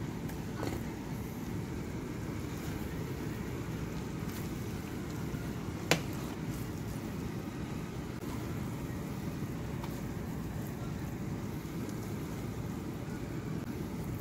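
Cooked daal being served from a frying pan into a ceramic dish: a few light clicks of pan or utensil against the dish, the sharpest about six seconds in, over a steady low rumble.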